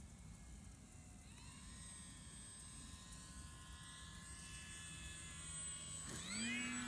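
RC Maule model plane's motor buzzing in flight, growing louder, its pitch sliding, then rising sharply about six seconds in as the throttle opens for a go-around.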